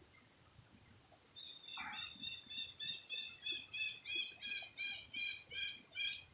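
A bird calling a long run of short, high repeated notes, about three a second, starting about a second in and growing louder as it goes.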